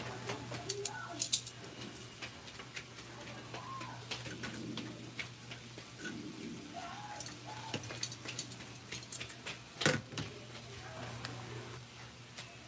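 Whole fish sizzling on an electric grill pan, with many small irregular crackles and pops over a steady low hum, and one sharper knock about ten seconds in.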